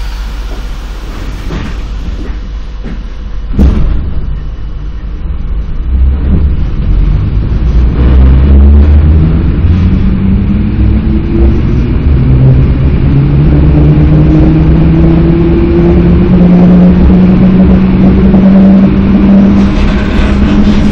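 EN57 electric multiple unit pulling out and picking up speed, heard from inside the carriage: a low rumble of wheels on track with a motor hum that climbs steadily in pitch as it accelerates. A single knock comes about three and a half seconds in.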